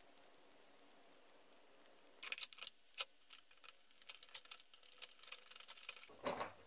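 Light clicks and taps of a Husqvarna 440 chainsaw's plastic body being handled and turned over, starting about two seconds in, with a louder knock near the end.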